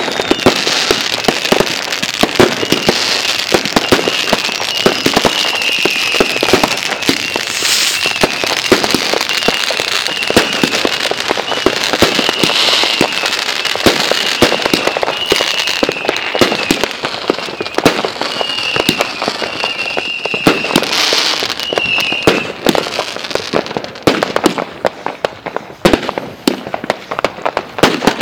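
Fireworks crackling: a dense, continuous stream of rapid small pops. A high, wavering whistling tone runs under it for most of the time and stops a little over 20 seconds in, and the crackle thins out near the end.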